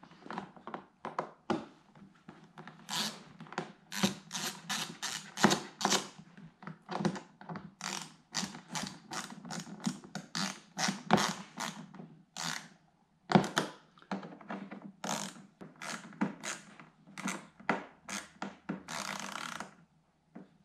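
A hand ratchet clicking in irregular runs of quick strokes, with light knocks, as the screws holding the front splitter's fender piece are snugged up.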